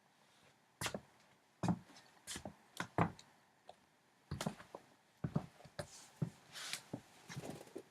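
Footsteps and shuffling in basketball sneakers: a dozen or so irregular knocks and taps, some with a dull thud, and a brief rubbing hiss near the end.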